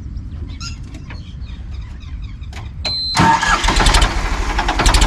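Ford tractor's diesel engine started on its electric self-starter: a brief crank about three seconds in, and it catches almost at once and runs loudly. The quick catch is a sign of easy starting.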